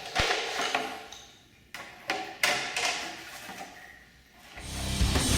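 Metallic clinks and taps of a socket wrench on the front fork pinch bolts as they are retightened, five or so sharp ringing knocks in the first three seconds. Music with a drum beat starts near the end.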